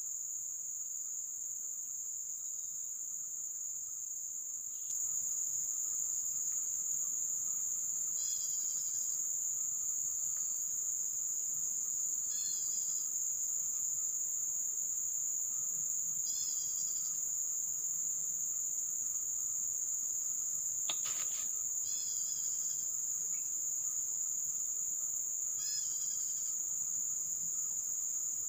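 Steady high-pitched drone of an insect chorus, growing louder about five seconds in, with a short chirping call repeating about every four seconds and a single sharp click about three-quarters of the way through.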